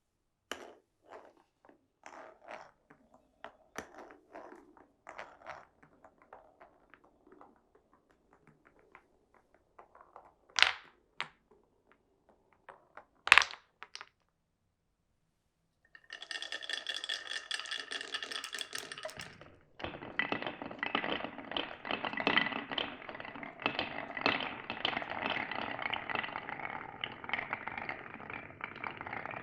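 Marbles rolling and clicking along a wooden marble run, with two sharp knocks as balls drop or strike the track. After a brief pause, a dense ringing rattle gives way to a continuous clatter of many marbles running down the course together.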